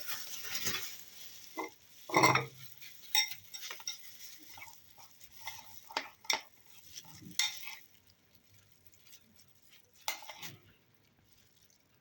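Spice rub being sprinkled and worked by hand into raw pork ribs: scattered light rustles, taps and clicks, with a louder bump about two seconds in.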